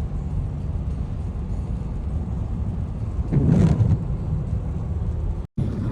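Steady road and engine rumble inside the cabin of a 2024 Mercedes-Benz GLE driving on wet roads, with one louder, brief swishing noise a little past halfway. The sound cuts out for an instant near the end.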